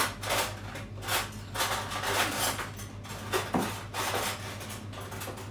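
A fork clinking and scraping against a metal baking tray as baked donut holes are forked to check them: a run of irregular clinks and knocks that thins out near the end.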